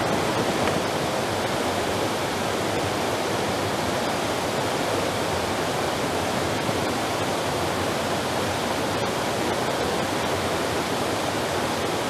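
Steady rush of a mountain creek's water spilling over rock in a small cascade into a pool.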